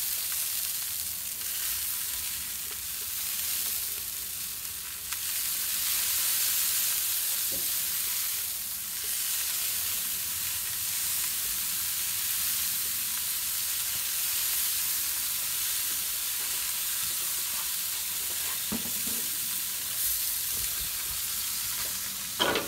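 Hand-pump garden sprayer misting racks of ribs on a smoker, a steady hiss that dips briefly a few times. A short clatter near the end.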